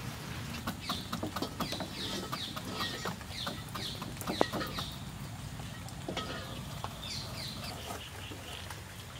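Kitchen knife cutting through a raw beetroot held in the hand: a run of short crisp clicks and knocks, the loudest about halfway through. Birds call repeatedly in short falling chirps over it, in two spells.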